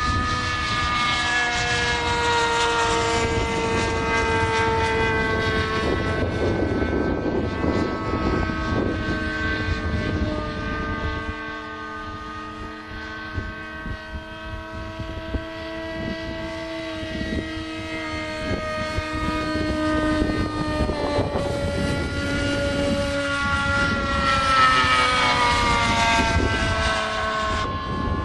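Small 2212 brushless electric motor and propeller of a foamboard RC pusher jet in flight: a buzzing whine whose pitch slides up and down as the model passes and the throttle changes. It is quieter for a few seconds around the middle and loudest near the end.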